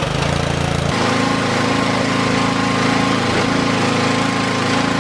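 Gas pressure washer with a Honda GCV single-cylinder engine running steadily, with the hiss of the water jet from the spray wand. The engine note changes about a second in, then holds steady.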